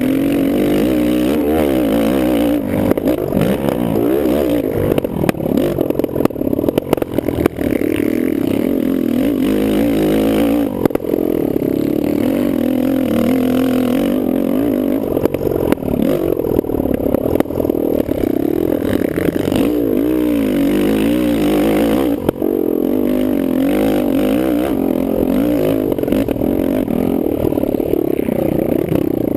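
Kawasaki KFX450R quad's single-cylinder four-stroke engine revving up and down over and over while racing, with scattered knocks and rattles from the machine over rough ground.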